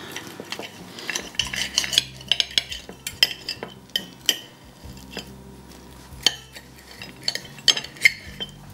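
Knife and fork scraping and clinking on a plate as cooked lamb ribs are cut apart, in irregular strokes with short pauses between them.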